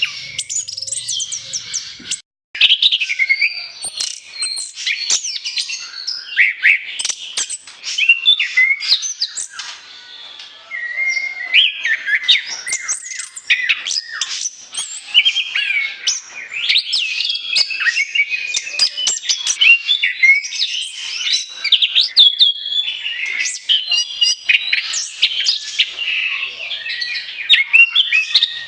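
Orange-headed thrush (anis kembang) singing vigorously: a rapid, unbroken stream of varied high chirps, trills and gliding whistles. There is a brief break a little after two seconds in.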